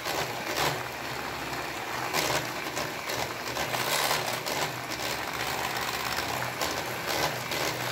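Electric hand mixer running steadily, its wire beaters whisking thin cake batter in a glass bowl.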